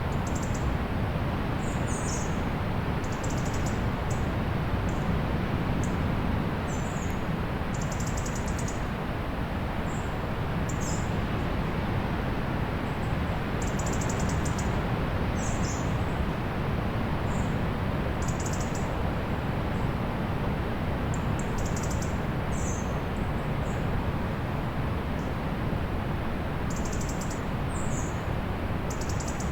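Ocean surf as a steady wash of noise, with small birds' high chirps and short trills repeating every second or two above it.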